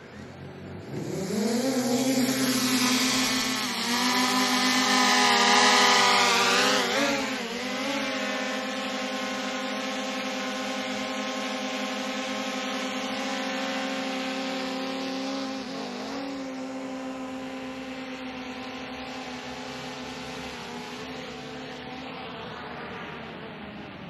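A drone's propellers spinning up about a second in, then running with a steady whine whose pitch wavers as it manoeuvres. It is loudest over the first several seconds and a little fainter later.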